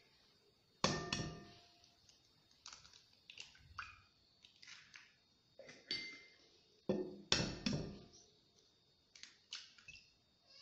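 Eggs being cracked against the rim of a glass mixing bowl. Sharp taps with a brief glassy ring come about a second in and twice in quick succession around seven and a half seconds, with fainter clicks and clinks of shell and glass between.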